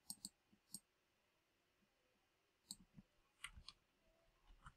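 Faint, scattered clicks of a computer mouse and keyboard keys: about three in the first second and a few more near the end, with near silence between.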